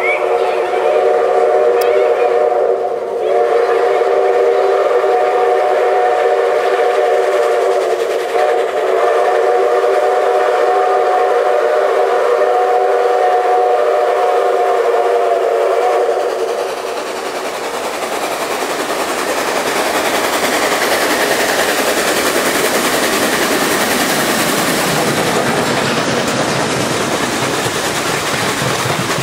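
Steam whistle of ex-Canadian National Mikado 2-8-2 #3254, held in long blasts of several notes at once for about the first half, with short breaks in between. It then gives way to the loud, steady rushing noise of the locomotive and its coaches passing close by.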